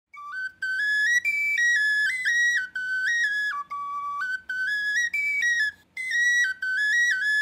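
Intro music: a lively melody played on a high woodwind such as a whistle or flute, moving in quick stepped notes in short phrases with brief breaks between them.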